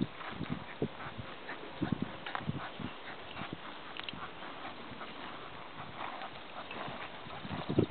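Hoofbeats of a young horse walking under saddle on a dirt arena: soft, irregular thuds and clicks. A louder low burst of noise comes right at the end.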